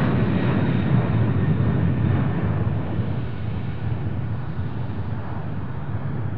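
Jet engines of the Rolls-Royce Boeing 747-200 flying testbed (RB211s plus a Trent 1000 test engine) at takeoff thrust as the jet lifts off and climbs away. A loud, steady, low engine noise that slowly fades.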